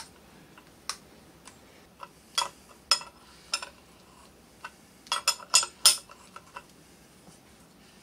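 Scattered metal clinks and clicks of hand tools and parts being handled on an electric unicycle's hub motor, the torque wrench, socket and axle hanger, with a quick run of several clinks about five seconds in.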